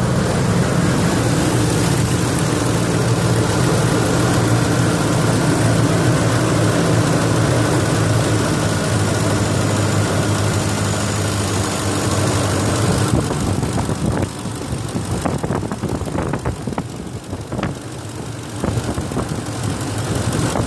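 Ford 5.4L V8 idling with a ticking noise, common on this engine, that new VCT solenoids have not cured. About two-thirds of the way through the sound drops and changes, with separate clicks standing out.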